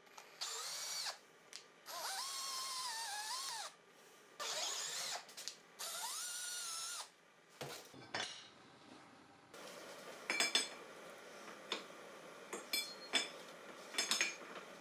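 Electric drill boring into a steel box-section tube, run in four bursts, its motor whine dipping in pitch as the bit bites. About seven and a half seconds in it gives way to a quieter stretch of light metallic clinks and taps as metal parts are handled.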